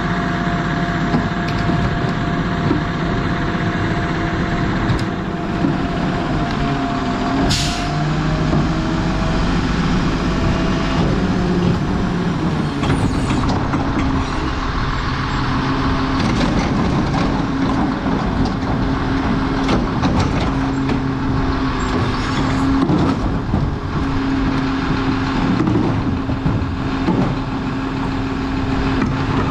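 Lodal EVO garbage truck running at the curb, its hydraulics whining and shifting in pitch as the cart tippers lift and dump wheeled carts into the hopper, with knocks and clatter of the plastic carts. A short hiss of air comes about seven seconds in.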